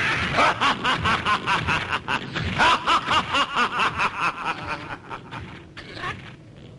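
A costumed monster's gloating villain laugh, a fast string of "ha-ha-ha" pulses about five a second, that trails off and fades over its last second or two.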